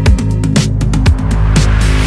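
Electronic background music with heavy bass and a steady drum beat about two hits a second, and a hissing swell that builds near the end.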